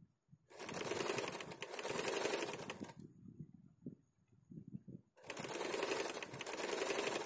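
Electric sewing machine stitching a seam through blouse fabric beside a zipper, in two runs of about two and a half seconds each, with a pause of soft fabric handling between them.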